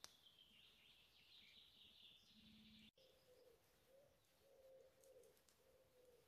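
Near silence in a forest: a faint high bird trill, falling slightly, for about three seconds. It breaks off suddenly, and a faint low wavering tone follows in short swells.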